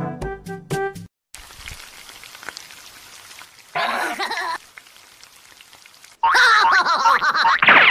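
Meat sizzling on a barbecue grill, a steady faint hiss. About four seconds in comes a short cartoon voice sound, and near the end a louder burst of cartoon vocalising. A brief snatch of brass music opens.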